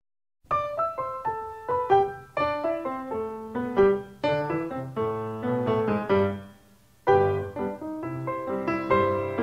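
Background music: piano playing a melody of struck notes, with a short pause about two-thirds of the way through before the playing resumes.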